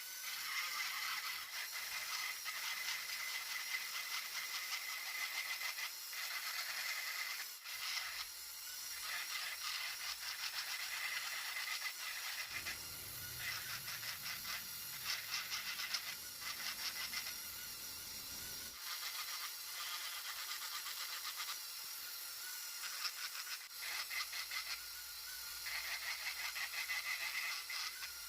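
Wood being carved with a tool: a continuous high, rasping scrape with a faint steady whine at times.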